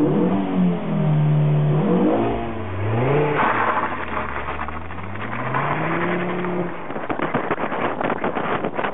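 Ford Focus RS (Mk2) turbocharged 2.5-litre five-cylinder engine under way, its revs rising and falling several times, with a sharp drop about three seconds in and then a long steady climb. Near the end the engine fades under wind and road noise.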